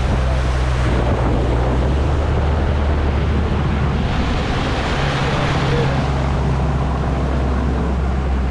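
Bass boat's outboard motor running under way, a steady low engine drone mixed with rushing water and heavy wind buffeting the microphone.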